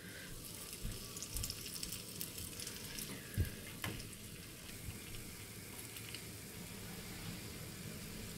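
Banana paniyaram batter balls deep-frying in hot oil: a steady sizzle with fine crackling, and a couple of light knocks about three and a half seconds in.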